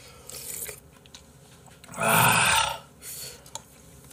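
A man eating with soft chewing and mouth sounds, then one loud, rough throat sound lasting under a second about two seconds in.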